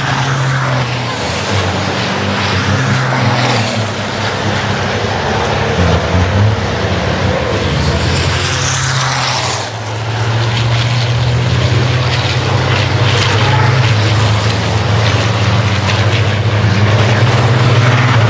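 Racing trucks' diesel engines running hard at speed: a steady low drone that dips briefly about halfway through and then comes back louder.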